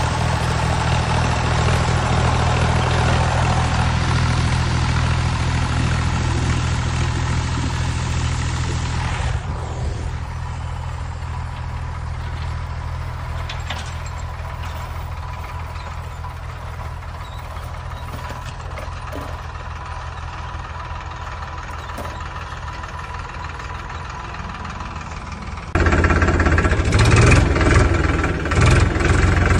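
Recorded vehicle engine sound running steadily, an effect laid over footage of toys that have no motor. About four seconds before the end it cuts abruptly to a louder, rougher engine sound.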